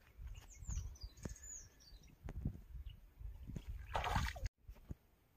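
Birds chirping, with a few short falling calls in the first second or so, over low handling thumps. About four seconds in, a brief splash as a big rohu is lowered back into the river water, cut off suddenly.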